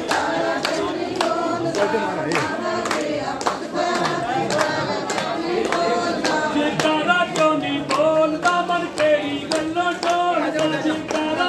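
Voices singing a chant-like tune over a steady clapping beat of about two to three claps a second.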